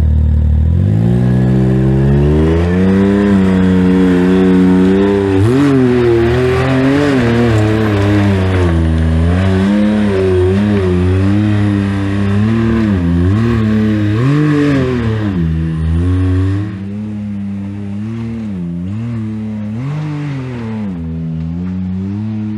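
Side-by-side UTV engine revving up, then running with the throttle worked on and off, so its pitch keeps rising and falling. It drops noticeably quieter about 16 seconds in.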